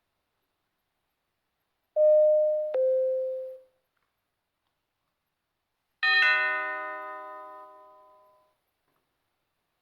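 Doorbell chimes: a falling two-note ding-dong about two seconds in, then a brighter chime struck twice in quick succession about six seconds in that rings out for a couple of seconds.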